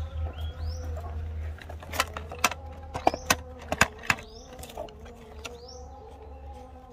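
Cardboard and plastic packaging being handled: a toy's window box shifted and slid inside a cardboard shipping carton, with a cluster of sharp clicks and knocks from about two to four seconds in.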